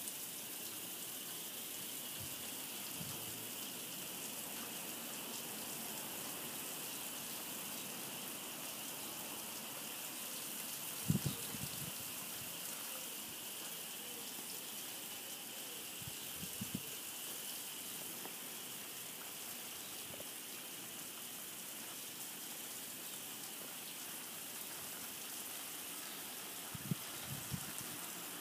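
Water spraying from a hose onto a wet concrete path, a steady hiss like rain on pavement. A few short low thumps come through it, around the middle and again near the end.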